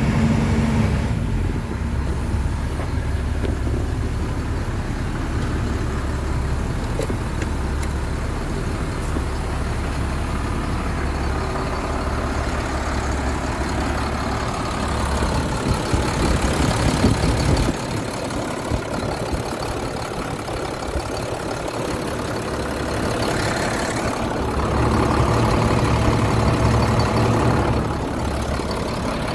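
The diesel engine of a 2006 International 4400 truck running steadily at about 1,500 rpm, heard first from the cab and then from beside the open engine bay.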